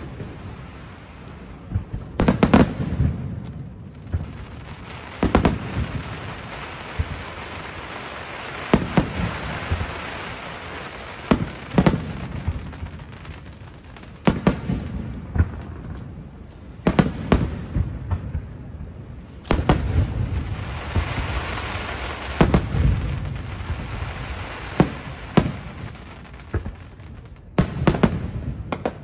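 Aerial fireworks shells bursting, a sharp boom every two or three seconds, each followed by a low rumble, with long stretches of dense crackle between the bursts.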